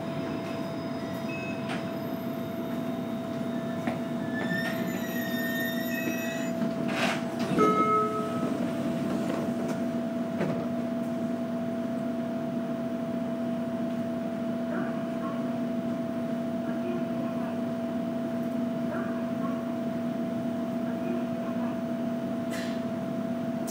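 Inside a JR Kyushu 815 series electric train: a steady electrical hum over the rumble of the car, with a single clunk about seven seconds in and a few short electronic tones.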